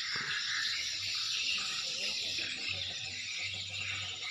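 Steady outdoor background noise: a high hiss with a faint steady high whistle, and a low hum that comes and goes.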